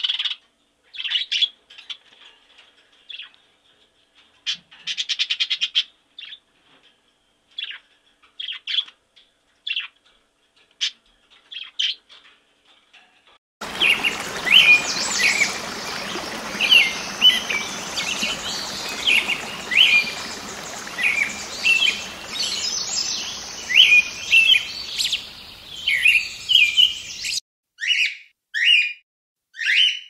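Budgerigar chirping in short, scattered calls. About halfway through, a small green parrot takes over with rapid, repeated chirps over a steady outdoor hiss. Near the end, the hiss cuts off and a run of louder, evenly spaced calls of another parrot begins.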